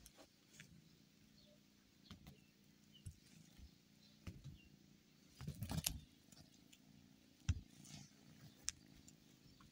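Faint scuffs and soft clicks as a kitten bats and grabs a coiled-spring-wire cat toy on a mattress, with a burst of rustling a little past the middle and a sharper knock about two seconds later.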